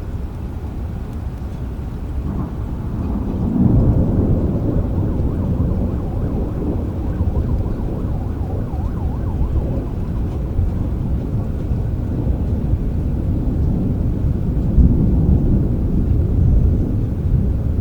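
Thunder rolling in a rainstorm: a low, continuous rumble over the rain that swells about three and a half seconds in and again near the end.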